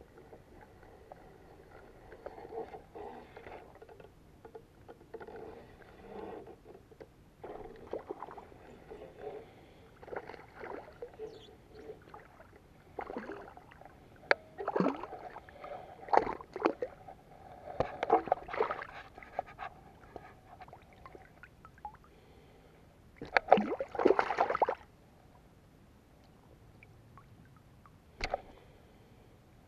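Water splashing and sloshing as a hooked largemouth bass is played at the surface and lifted out, in a run of uneven splashes and clicks. The loudest splashing comes a little over twenty seconds in and lasts about a second and a half.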